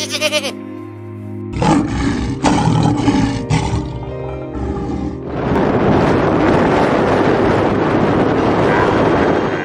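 Lion roars and growls in several short rough bursts over background music. About halfway in this gives way to a long, harsh, gurgling camel grumble. A goat's bleat is cut off right at the start.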